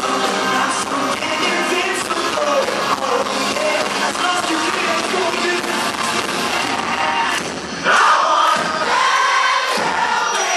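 Live pop-rock band playing with a male singer on a handheld microphone. About eight seconds in the bass and drums drop away and loud singing carries on over a lighter backing.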